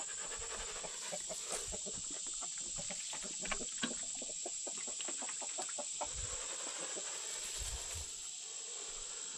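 Chickens clucking in a run, a busy stream of short calls that thins out after about six seconds, with a steady high-pitched tone underneath.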